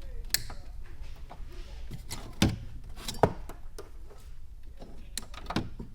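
A few sharp, separate clicks and knocks, about four, the loudest two near the middle, from parts and tools being handled during work inside a car's interior, over a low steady hum.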